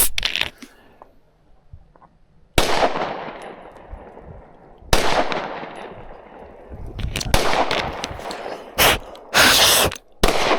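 Handgun shots with long echoing tails: one about two and a half seconds in and another about five seconds in, followed by a quicker run of sharp reports and a brief noisy burst in the last few seconds.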